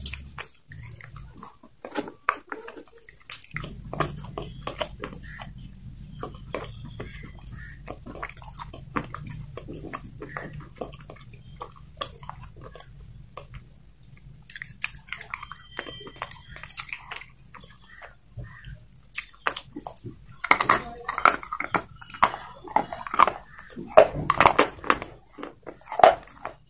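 Slate pencil being bitten and chewed close to the microphone: many short, sharp crunches and crackles. A steady low hum runs under it from a few seconds in until about three-quarters through, and the chewing grows louder near the end.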